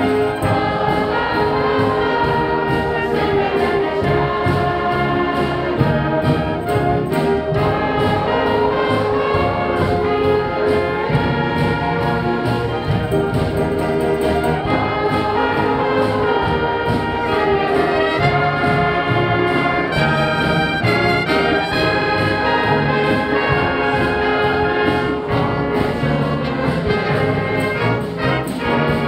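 A brass and wind band playing a piece, with trumpets and trombones prominent in sustained, moving melodic lines.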